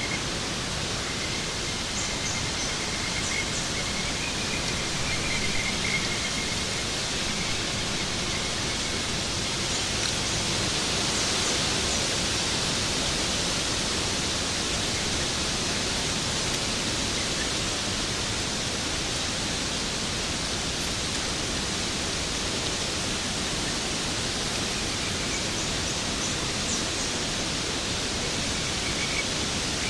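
Waterfall: a steady, even rush of falling water, with a few faint high-pitched calls now and then.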